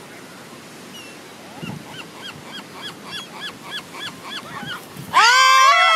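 Seagulls calling: a quick run of about ten short, repeated calls, then a much louder, harsher cry breaking out close by about five seconds in.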